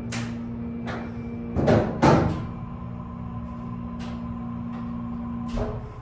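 Two loud knocks in quick succession inside a Schindler 330A hydraulic elevator's car, heard over a steady hum that stops with a thump about five and a half seconds in; the knock seems to come from the cab ceiling.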